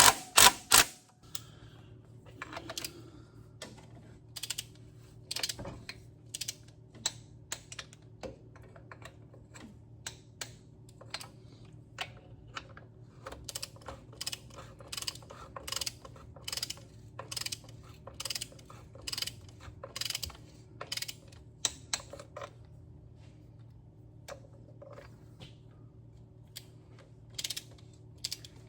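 Hand ratchet clicking in irregular quick runs as the manifold bolts on a Case 770 diesel tractor engine are run down, with a few louder clicks about the first second; a faint steady hum runs underneath.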